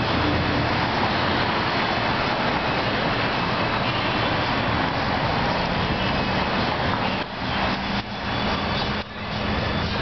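Steady street traffic noise, with a low engine hum from a passing vehicle in the last few seconds.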